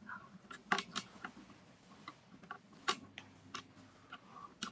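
Irregular sharp clicks and taps, about a dozen, scattered over a faint steady low hum.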